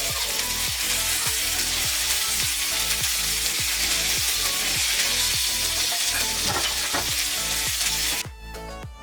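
Food frying with a loud, steady sizzle that cuts off abruptly near the end, over background electronic music with a steady beat.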